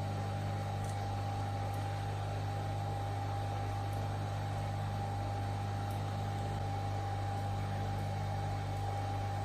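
Steady electrical hum with a constant higher whine over a light hiss, unchanging throughout.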